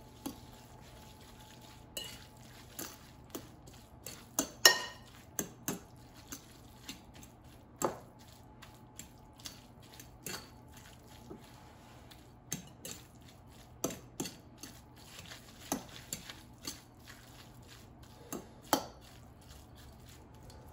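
Metal fork clinking and scraping against a glass mixing bowl while tossing soft cooked spaghetti squash strands. The clinks come irregularly, about one or two a second, with a few louder knocks against the glass.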